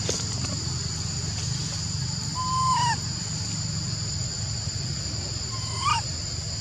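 Baby macaque giving two short, clear coo calls: the first held level and then falling, the second near the end rising and then falling, over a steady high-pitched whine.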